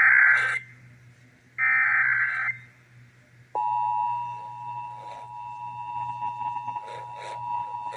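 Emergency Alert System SAME header: two bursts of warbling digital data tones, each about a second long and a second apart, the end of the header that opens an EAS test. About three and a half seconds in, the steady two-tone EAS attention signal (853 and 960 Hz) starts abruptly and holds.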